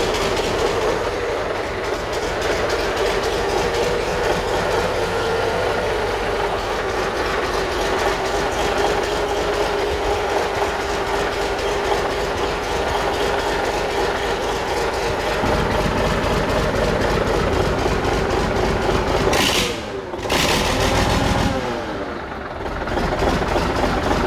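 Turbocharged Yanmar diesel engine running steadily with a rapid, even knocking beat. Near the end its note dips and slides twice before settling back.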